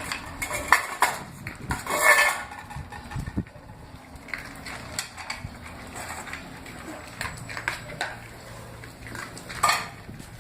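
Scattered clinks and rattles of small hard objects, with louder bursts about two seconds in and near the end.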